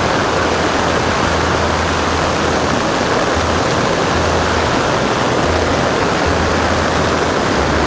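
Floodwater rushing hard down a swollen creek: a steady, loud torrent with a low rumble under it.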